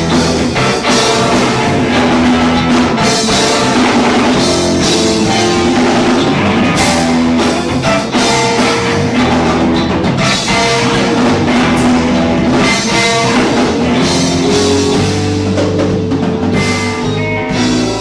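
Live rock band playing loudly: electric guitars, bass guitar and a full drum kit.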